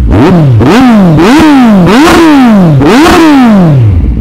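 2012 Kawasaki Z1000's inline-four engine revved loudly through its twin Yoshimura carbon exhausts in a string of quick throttle blips, each rev shooting up and falling back toward idle.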